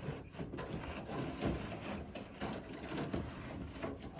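Suspended-ceiling tile being slid back over the metal T-bar grid: an irregular scraping and rustling.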